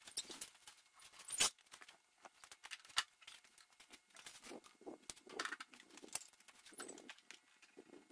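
Scattered clatter and rattles of a Lincoln Electric welder cart being rolled into place and its gun and cables handled, with two sharp knocks about a second and a half in and at three seconds.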